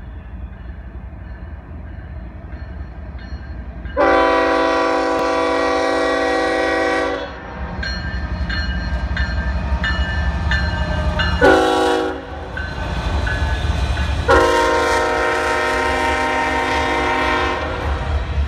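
Union Pacific diesel locomotives' air horn sounding for a grade crossing: a long blast about four seconds in, a short blast, then a second long blast. Under it the engines and the passing stack train's wheels make a steady low rumble.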